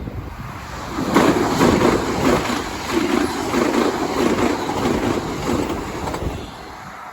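Tsubasa shinkansen train passing at speed: a rushing rumble of wheels and air that swells about a second in and fades near the end.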